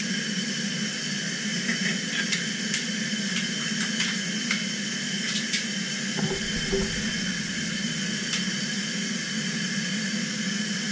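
Steady hiss of compressed air rushing into a decompression chamber as it is pressurised for a dry dive. A brief low rumble comes about six seconds in.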